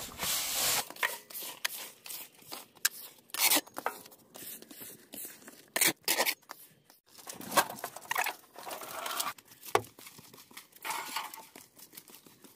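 Irregular rustling, scraping and crinkling of objects being handled and shifted about while clearing out clutter, with no steady rhythm.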